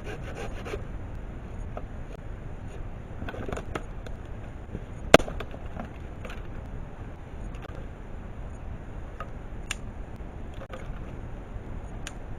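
Scattered light clicks and knocks over a steady low rumble, with one sharp crack about five seconds in.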